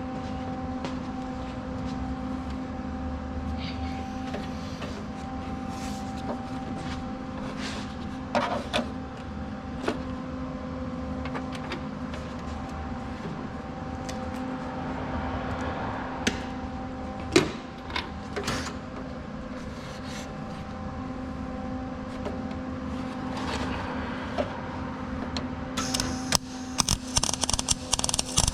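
Steady electrical hum with occasional clicks and knocks; near the end, a loud, rapid crackling of arc welding on sheet steel starts.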